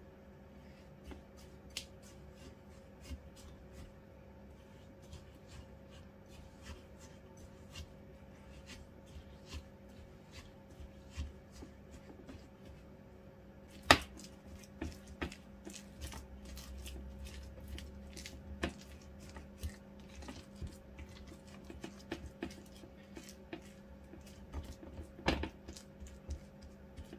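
Silicone spatula stirring and pressing a stiff mix of shredded coconut, egg white and sugar in a glass bowl: irregular soft scrapes and clicks, with two sharper knocks against the bowl, about 14 seconds in and again near the end.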